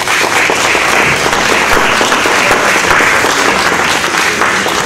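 A crowd applauding loudly, with dense, steady clapping.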